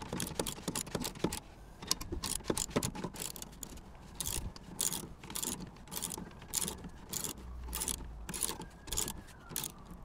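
Allen key turning a bolt through a van seat's swivel plate: irregular metallic clicks and scrapes, several a second.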